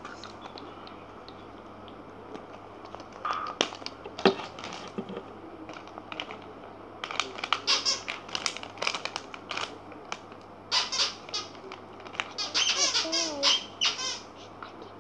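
Handling of a plastic blister-packaged toy: irregular clicks and crinkles that become busy in the second half, with a few short squeaky sounds near the end.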